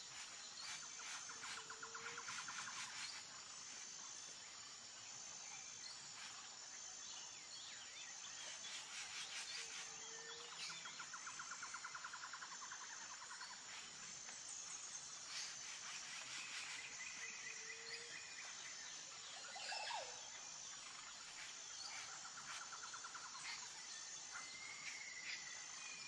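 Faint outdoor ambience of insects and birds: a high, evenly pulsing insect note throughout, short rapid trills that return every seven or eight seconds, and scattered chirps.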